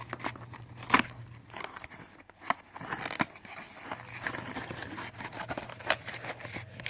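A small cardboard accessory box and its packaging being handled and opened: scattered sharp clicks and taps with soft rustling, the loudest tap about a second in.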